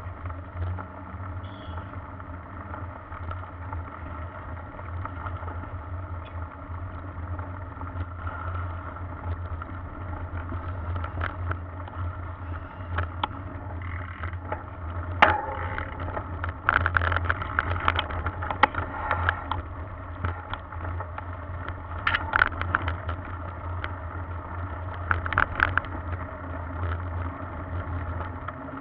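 Mountain bike riding over a rough dirt track, picked up by a camera mounted on the bike: a steady low rumble with bursts of rattling and clattering from the bike as it goes over bumps, most of them in the second half.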